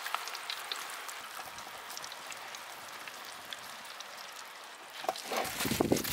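Fine crackling of crisp, freshly fried fish pakoda heaped in a steel bowl. From about five seconds in there is louder crunching and rustling as a hand digs into the pile.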